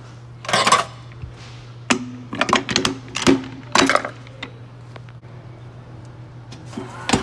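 Metal clanks and rattles as a wheel is clamped onto a tire-changer machine, with the locking cone and nut set onto the centre shaft. They come in several bursts in the first four seconds and once more near the end, over a steady low hum.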